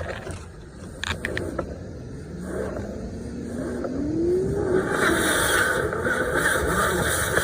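Dryer vent cleaning equipment running: a few clicks, then a motor whose pitch rises and falls as it speeds up and slows. From about five seconds in a loud rush of air sets in.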